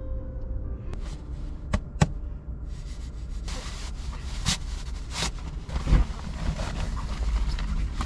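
Two sharp clicks, then crinkly rustling of nylon fabric as a folded inflatable air bed is pulled out of its bag and spread out, with a steady low hum underneath.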